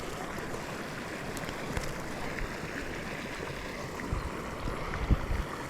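Steady outdoor hiss of water and air, with a few low thumps about four and five seconds in.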